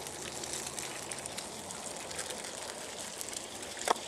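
Eggs, bacon and vegetable hash sizzling steadily in oil on a hot Blackstone flat-top griddle. A short sharp knock comes near the end.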